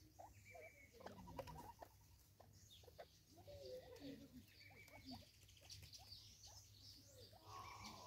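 Faint light clicks and patter of spurfowl and a squirrel pecking and nibbling at a seed feeder, with distant birds chirping now and then over a low steady hum.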